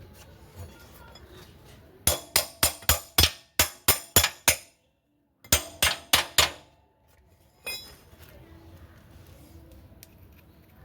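Hammer tapping on metal in quick, ringing strikes, as a bush is driven into the motorcycle's rear brake linkage: about nine taps, a short break, then about five more, with one lighter click after.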